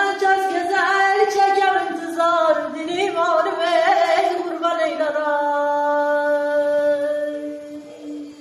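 A woman singing a Qashqai Turkic song unaccompanied. Her voice turns in quick ornamented runs, then holds one long note from about five seconds in until it fades near the end.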